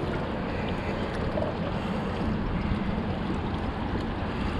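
Steady wind and water noise around a small fishing boat, with a faint low hum underneath.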